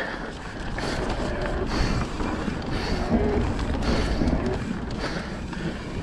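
Mountain bike riding down a dirt trail: its Michelin downhill tyres rolling over dirt and the bike rattling, with a steady rush of wind on the microphone.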